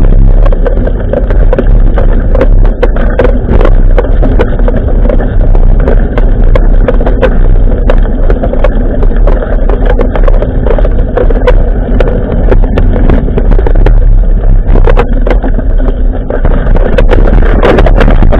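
Loud, steady wind buffeting on a bike-mounted action camera's microphone, mixed with the rattling and knocking of a mountain bike being ridden over path and grass, with many short clicks and knocks throughout.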